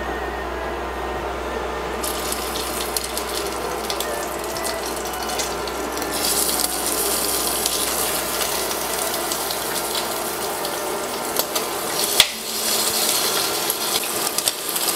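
Pieces of boiled chicken breast sizzling and crackling in hot sesame oil in a stainless-steel frying pan as they are added. The sizzle starts about two seconds in and grows louder around six seconds, with a sharp tap about twelve seconds in.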